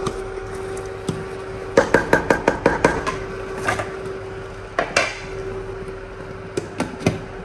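Wooden spatula knocking and scraping against a metal cooking pot while okra soup is stirred, with a quick run of taps about two seconds in. A few single clinks follow later as a glass pot lid is handled and set on the pot.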